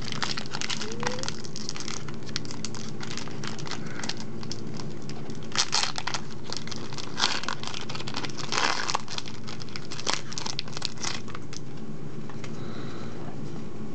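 Foil wrapper of a Pokémon trading card booster pack crinkling and tearing as it is ripped open by hand, in irregular crackly bursts, loudest in the middle. Near the end the cards are drawn out of the pack.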